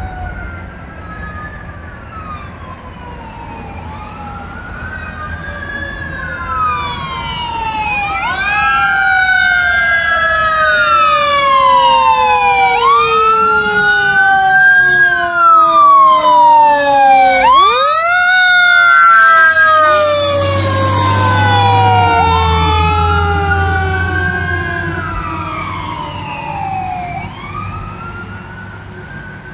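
Wail sirens of responding fire department vehicles, two or more overlapping, each sweeping up and down in pitch. They grow louder to a peak around the middle, drop sharply in pitch as a vehicle passes, then fade as they move away, with a heavy truck engine rumble under them in the second half.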